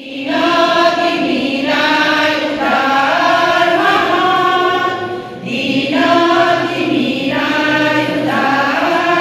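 Women's church choir singing a hymn from hymnbooks, in long held notes, with one brief break between phrases about five and a half seconds in.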